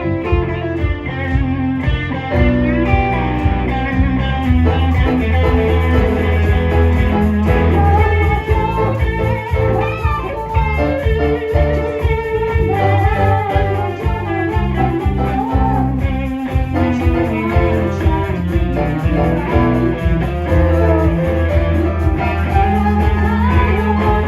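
A live band playing, with guitar to the fore over sustained bass notes.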